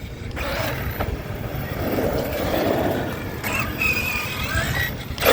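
Large-scale electric RC truck driving: its motor whining over tyre and rolling noise, with a short steady whine about four seconds in and a brief rising whine after it.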